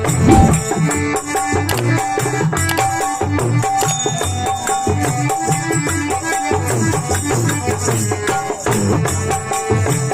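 Instrumental folk bhajan music: a steady beat of drum and shaken, jingling rattle-type percussion under a short melodic note repeated again and again.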